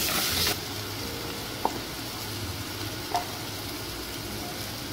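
Chopped onions sizzling as they sauté in hot oil in a clay pot, stirred in the first half-second. A steady frying hiss follows, with two short clinks about a second and a half apart.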